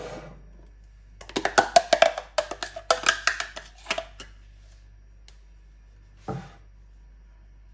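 A quick run of sharp taps and knocks lasting about three seconds, starting about a second in, then one short sound near the end.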